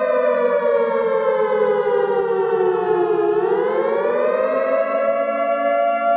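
Air raid siren wailing as a warning. Its held tone sinks in pitch over about three seconds, then rises back to the held pitch by about five seconds in, with a fainter, lower steady tone beneath it.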